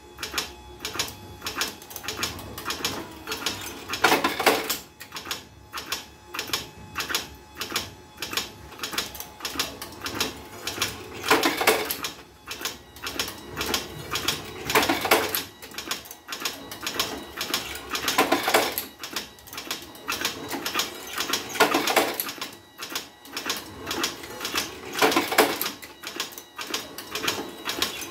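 Homemade automatic revolver-cylinder cigarette-making machine running, filling filter cigarettes with moist kretek tobacco: a steady, fast clicking mechanism with a louder rattling burst about every three and a half seconds, over a faint motor hum.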